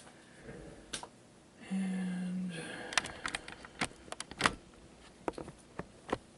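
A short, steady electronic buzz about two seconds in, then a run of irregular clicks and taps as equipment and cables are handled while a camera is being plugged into power.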